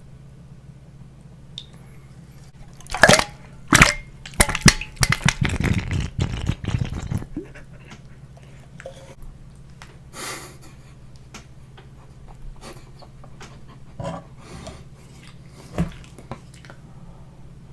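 Close-miked eating sounds: a few sharp, crisp bites about three to four seconds in, then a few seconds of dense chewing and squishing, followed by scattered small mouth clicks and smacks. A steady low hum runs underneath.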